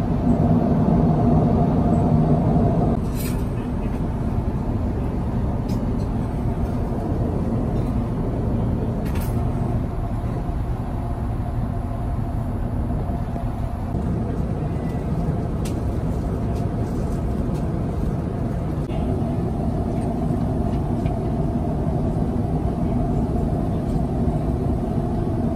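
Steady cabin noise of an Airbus A350 at cruise altitude: a constant rush of airflow over the fuselage with a low engine drone. The hum in it eases about three seconds in and swells again later, and there are a couple of faint clicks.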